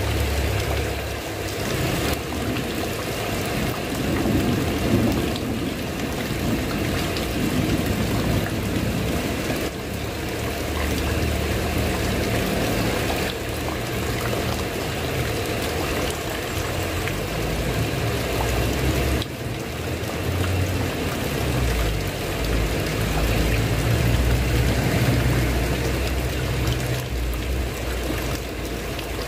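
Heavy rain falling steadily on a tiled roof, with a low rumble that swells and fades underneath.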